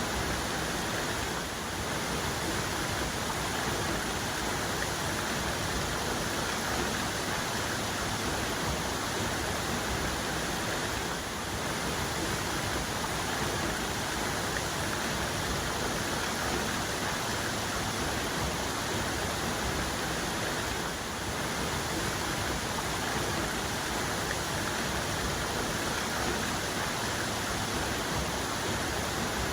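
Waterfall cascade: water falling and splashing in a steady, even rush with no breaks or changes.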